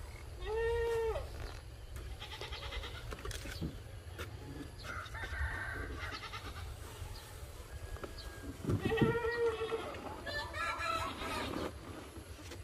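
Farm animals calling: a drawn-out call about half a second in and another about nine seconds in, with a few shorter calls after it and faint chirping between.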